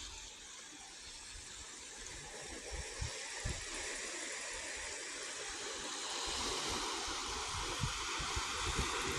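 Wind buffeting the microphone over a steady rushing noise, which grows a little louder about six seconds in.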